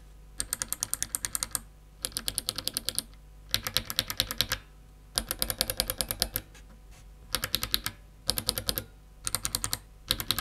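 Clicky mechanical keyboard switches being typed on in a run of short, fast bursts of keystrokes, each about a second long with brief pauses between, every press giving a sharp click.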